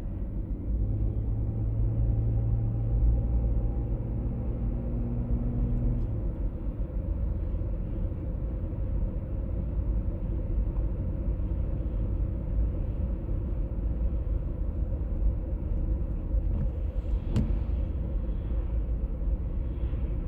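A 1996 BMW E39 523i automatic driving, with steady low road rumble and a humming drone whose cause is not yet known. The hum stands out clearly for the first six seconds or so, then sinks into the rumble. There is a brief click near the end.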